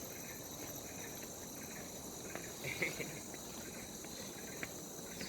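Faint, steady high-pitched drone of insects in the forest, with a few faint voices in the background.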